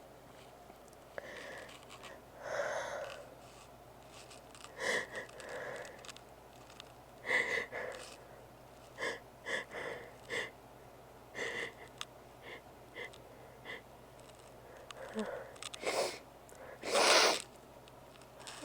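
A person in a sneezing fit: a string of short sniffs and breaths through a congested, irritated nose, ending near the end in one loud sneeze. The uploader puts the fit down to a nose made oversensitive by trying to clear out the congestion.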